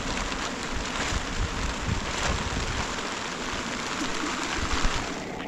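Steady rain falling, pattering on the plastic sheeting draped over a tent.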